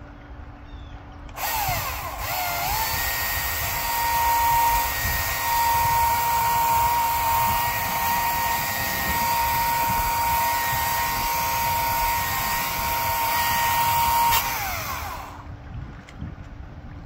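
Power tool motor spinning up about a second in and running at a steady high whine for roughly thirteen seconds. It then winds down and stops near the end.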